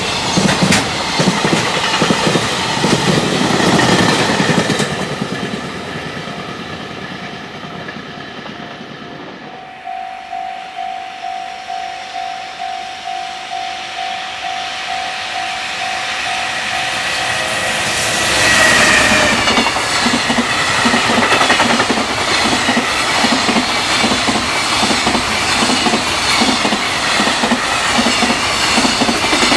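A freight train passes at speed, its wheels clattering over the rail joints, and fades away. About ten seconds in, a level-crossing warning bell starts ringing in an even rhythm of somewhat under two strikes a second. A second freight train arrives about eighteen seconds in, with electric motor sound and loud joint clatter running on.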